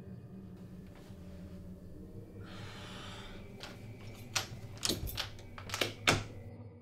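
Knocking on an interior door: about six sharp knocks in loose pairs, starting about halfway through, over a low steady drone. A short breathy hiss, like a gasp, comes just before the knocks.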